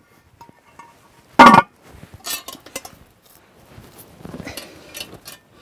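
Cast-iron camp oven's lid clanking down onto the pot once, sharply and with a short ring, about a second and a half in. Lighter metal clinks and scraping follow as the lidded oven is lifted by its wire handle and set down in the campfire coals.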